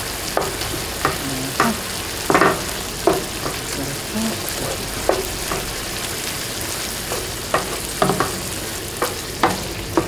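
Wooden spatula stirring butterbur stalks in a nonstick frying pan of simmering perilla-seed broth: a steady sizzle, with irregular scrapes and taps of the spatula against the pan.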